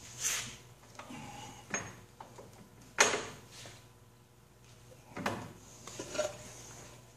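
Metal wrenches clanking as they are handled on a plywood board and against the stopped lathe's cast iron; about five separate knocks, the loudest about three seconds in, over a faint steady low hum.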